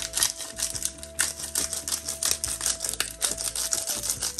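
Pepper grinder being twisted over a bowl of flour: a fast, even run of gritty clicks as peppercorns are cracked.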